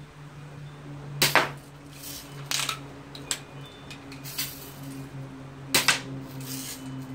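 BB gun firing repeatedly: about six sharp cracks, the two loudest about a second in and near the end, with fainter ones between.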